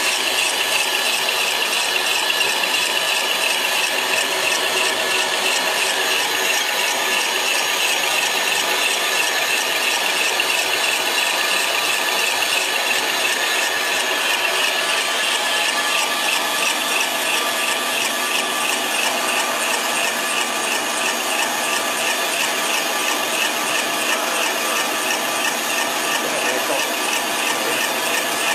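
Single-screw snack food extruder running steadily in production, a mechanical whir with a fast, even ticking over it.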